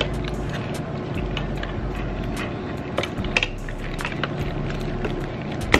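Clear plastic seafood-boil bags crinkling and shells clicking as hands pick through the food, over a steady background hum. A few sharper clicks come about three seconds in and one right at the end.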